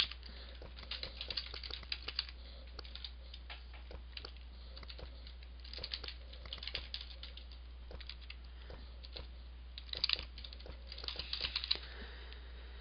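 Computer keyboard being typed on: irregular runs of key clicks with short pauses between them, over a steady low hum.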